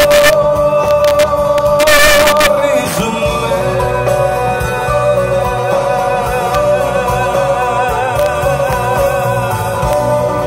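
Live pop concert music: a male singer holds a long note over the band's sustained accompaniment, with a short hiss about two seconds in.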